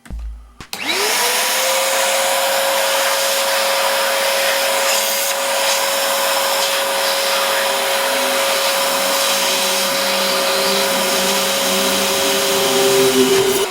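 Parrot Bebop quadcopter's electric motors and propellers spin up within the first second to a steady, loud whir with a clear tone, run at constant speed, and wind down with a falling pitch near the end.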